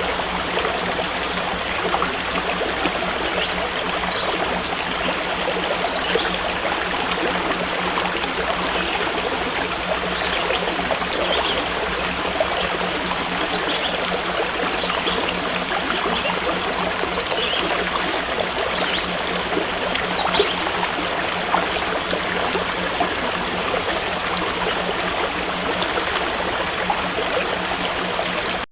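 Running water of a stream, flowing steadily without a break.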